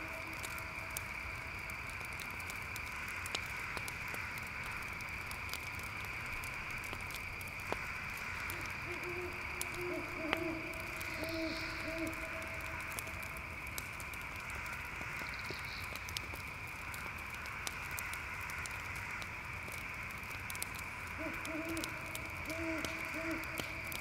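Night ambience of crickets chirring in a steady high chorus. Over it, bouts of low, repeated hooting calls come about nine seconds in and again near the end, with scattered faint crackles throughout.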